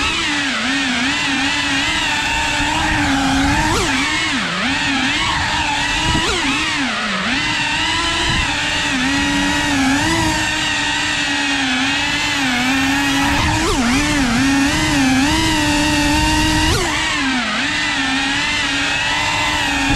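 Cinewoop FPV drone's small brushless motors and ducted propellers whining, the pitch wavering up and down with throttle changes and dipping sharply several times.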